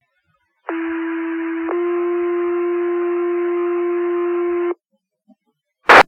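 Two-tone sequential paging tones on the fire department's dispatch radio: one steady tone for about a second, then a slightly higher tone held for about three seconds, the signal that sets off the volunteer firefighters' pagers. A short, sharp radio squelch crackle comes near the end.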